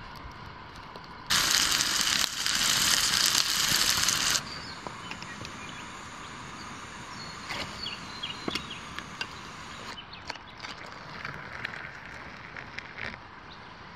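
Campfire cooking sounds: a loud hiss lasting about three seconds, then small crackles and ticks of the fire and a metal pot at the coals, and near the end hot water poured into a steel mug.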